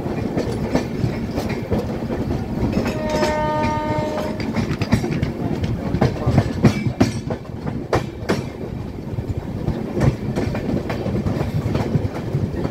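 Rajdhani Express LHB coach rolling slowly, its wheels rumbling and clicking irregularly over rail joints and points. A train horn sounds once, for about a second and a half, about three seconds in.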